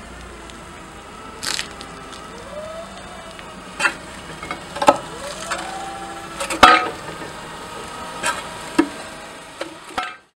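Forklift running with its engine pitch rising and falling as it rolls onto a 30 mm porcelain paving slab, with about six sharp cracks and snaps as the wheel loads the slab. The sound cuts off abruptly near the end.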